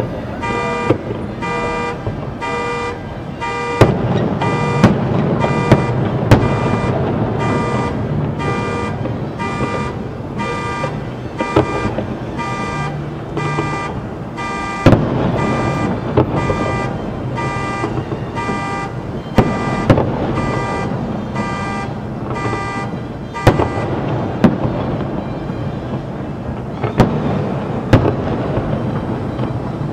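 A car alarm sounding in a steady pulsed tone, about two pulses a second, that cuts off about three quarters of the way in. Fireworks shells bang sharply over it throughout, with a low rumble between the bursts.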